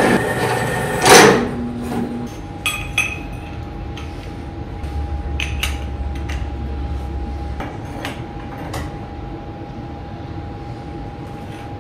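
A shop power tool's motor runs for about a second, then stops with a sharp clank. After that, steel tubing and shaft pieces clink and knock now and then as they are handled on a steel welding table, over a steady shop hum.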